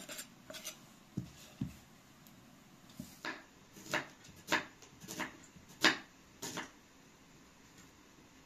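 Kitchen knife chopping vegetables on a thick round wooden board: single knocks at an uneven pace, about one every half second, stopping for the last couple of seconds.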